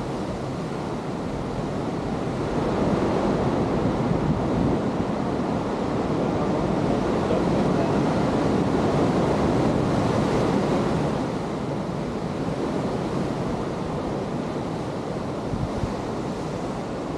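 Sea surf washing in steadily, swelling for several seconds and then easing off again, with wind rumbling on the microphone.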